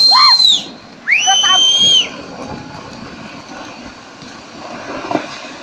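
Two long, shrill screams in the first two seconds. Then a steady rumble of rocks and debris pouring down a mountainside in a landslide, with a few sharper knocks of falling stones near the end.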